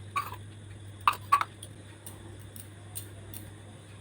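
A few light clicks of a spoon against a bowl as salt and sugar are added to the sifted flour. There is one click early on and two close together about a second in, with fainter ticks after. A low steady hum lies underneath.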